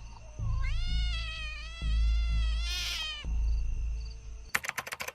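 A kitten gives one long meow, rising at the start and lasting about two and a half seconds, over a low music bed. Near the end a fast, dry rattling of clicks starts.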